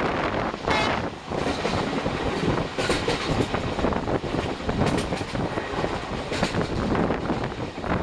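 Passenger train coaches running at about 90 km/h: steady wheel-and-track rumble with irregular sharp clacks over rail joints.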